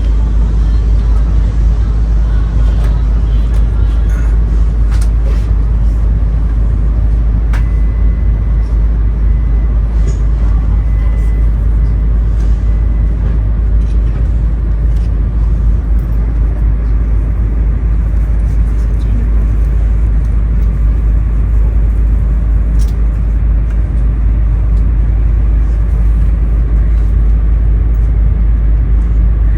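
Steady, loud low rumble of a Shinkansen station platform around standing E2-series trainsets during coupling work. A thin steady tone sounds for about five seconds, starting about seven seconds in, and there are a few faint clicks.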